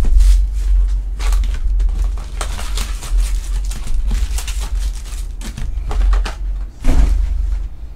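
Cardboard hobby box of Topps Chrome trading cards being handled and opened, its foil-wrapped packs taken out with repeated crinkling and rustling over a low handling rumble. A louder knock comes about seven seconds in.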